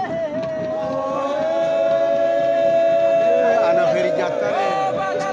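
A group of voices chanting in long held high calls over the ring. One call is held steady for about two and a half seconds in the middle, with other voices overlapping and gliding around it.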